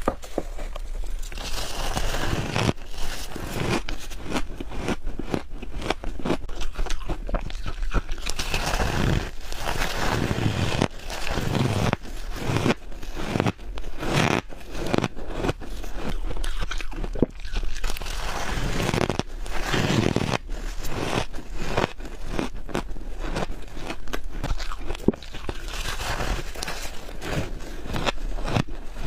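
Close-miked bites into soft freezer frost, one after another: dense crunching and crackling as the frost is bitten and chewed.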